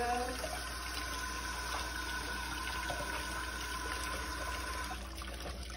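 Kitchen tap running and water splashing over a bunch of kale held under it into a stainless steel sink, with a faint steady whistle in the flow. The flow stops about five seconds in.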